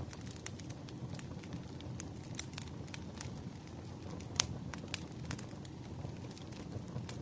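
Wood fire burning with a steady low rumble and frequent sharp crackles and pops, one louder pop a little past the middle.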